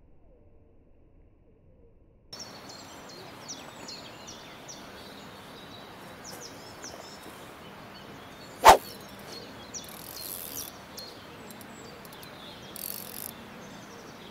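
Outdoor ambience with small birds chirping over a steady background hiss, after about two seconds of near silence. About eight and a half seconds in comes one sharp, loud knock.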